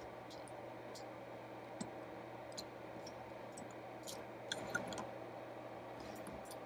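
Faint, irregular clicks of the preset push buttons on a Blaupunkt Monterey SQR 23 car radio being pressed one after another, the buttons stiff and very hard to press. A steady low electrical hum runs underneath.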